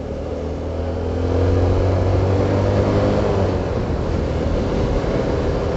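Motorcycle engine running while riding, with wind and road noise; its note rises and grows louder over the first second or two as it speeds up, then holds steady.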